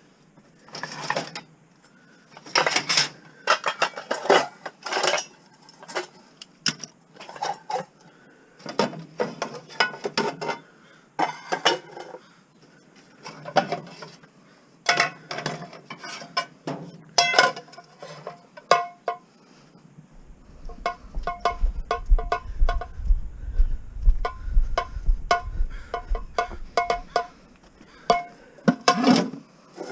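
Pieces of scrap metal clanking and clattering in irregular bursts as they are handled and tossed into a bin. A low rumble joins in through much of the second half.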